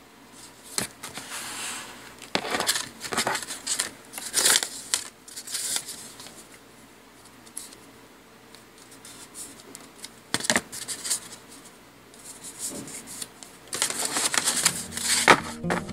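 Card stock panels being handled on a cutting mat: scattered taps, slides and rustles of paper, with a longer stretch of shuffling near the end.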